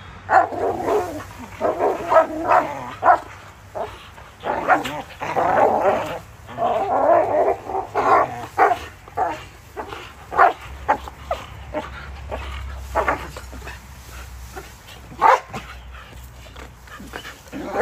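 Two Belgian Malinois barking in rough play while wrestling over a tug toy: a dense run of short barks for the first ten seconds or so, then scattered single barks.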